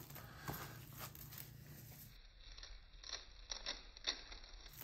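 Faint handling sounds of plastic-gloved hands rubbing dry seasoning rub into raw chicken cutlets on a metal tray, with scattered small ticks and crinkles of the gloves.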